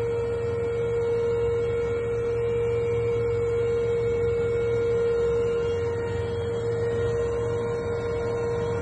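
Westland Lynx Mk7 helicopter in flight, heard from inside the cockpit: a steady high whine over a low rumble.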